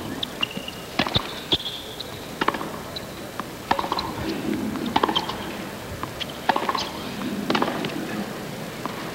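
Tennis rally on a hard court: the ball is struck by rackets and bounces, sharp pops every second or so, some in quick pairs.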